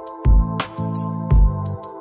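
Background music with a beat: low drum thumps about a second apart and sharp percussive hits over held chords.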